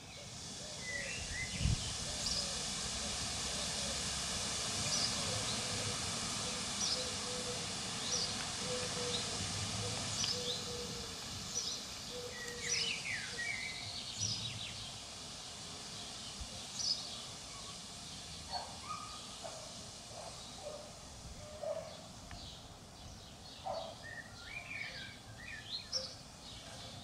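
Scattered short bird chirps and calls from garden birds over a steady outdoor hiss, which eases off about halfway through.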